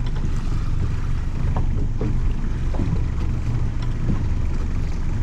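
Boat's outboard motor running steadily at low speed, a continuous low rumble. Its fuel system is being run through to clear out dirty fuel.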